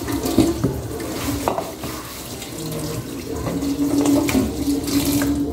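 Water running from a kitchen tap into the sink, with a few light knocks.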